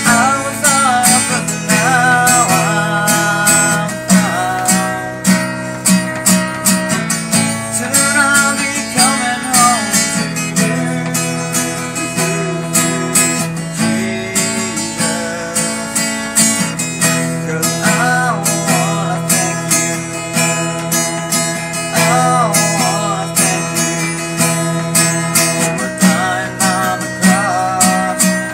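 Steel-string acoustic guitar strummed steadily in a regular rhythm, with a man singing short, wavering phrases over it every few seconds.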